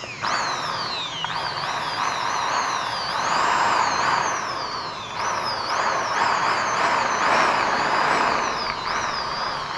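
Bosch GSB 550 corded impact drill running free with no bit load, its motor whine rising and falling in pitch again and again as the variable-speed trigger is squeezed and eased.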